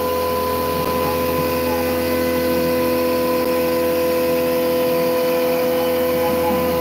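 Langmuir Systems MR-1 CNC mill's end mill cutting mild steel: a steady, loud, high-pitched machining whine made of a few held tones, running without a break.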